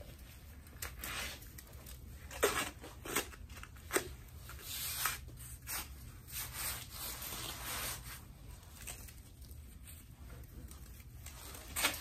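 Gloved hands scraping and scooping crusty, icy snow off a hard patio surface to pack into a plastic cup: a run of irregular crunching scrapes.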